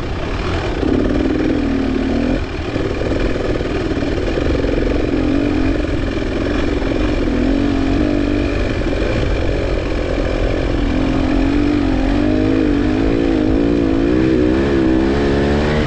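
Off-road race machine's engine revving up and down under changing throttle, heard close from the handlebars, with a short drop in revs about two and a half seconds in and quick on-off throttle blips near the end.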